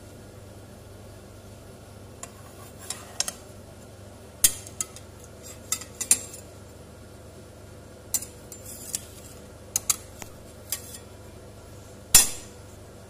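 Kitchenware clinking and knocking as a pancake is lifted from a frying pan onto a plate: a spatula and the plate striking the pan in about a dozen sharp, irregular clinks, with the loudest knock near the end.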